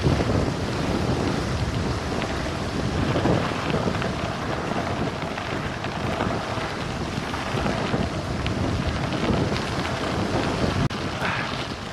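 Wind buffeting the microphone of a camera on a bike descending fast, over the rumble and crackle of tyres on a loose gravel road.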